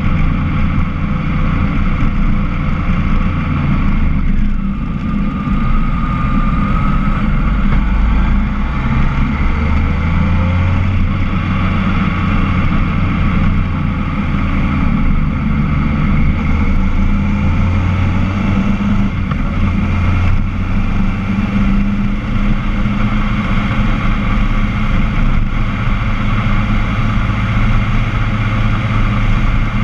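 Motorcycle engine running at road speed with wind noise. Its note shifts a few times as the bike speeds up and slows.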